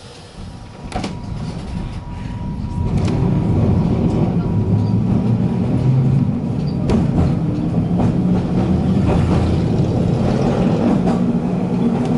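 W8-class tram running on its rails, growing louder over the first few seconds and then rumbling steadily, with a few sharp clicks from the wheels and running gear.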